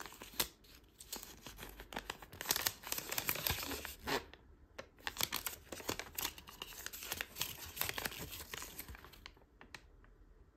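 Paper crinkling and rustling as a tightly rolled omikuji fortune slip is unrolled and smoothed flat between the fingers, a run of irregular crackles that dies away about nine seconds in.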